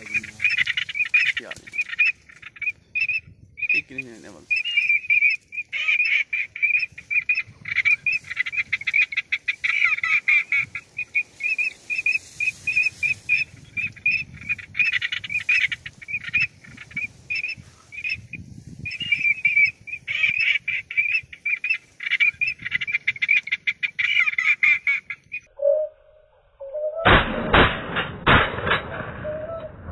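Duck calls: high, rapid chattering at a steady pitch, repeated almost without a break. About 26 seconds in the calling stops and a short burst of sharp rapid knocks with a lower steady tone follows.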